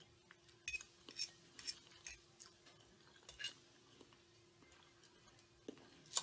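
Faint eating sounds: a few quick clicks of chewing and a fork tapping the plate, then a sharper clink near the end as the fork cuts into a hamburger patty on the plate. A faint steady hum lies underneath.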